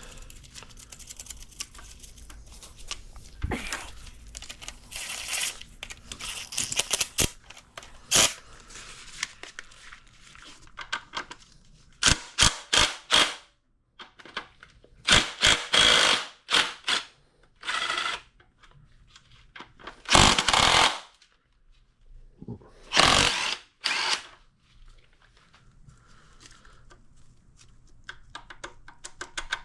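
Hand tools working on the connecting-rod caps of a 1931 Model A Ford four-cylinder engine: irregular bursts of metal clicking and clanking, with quieter pauses between.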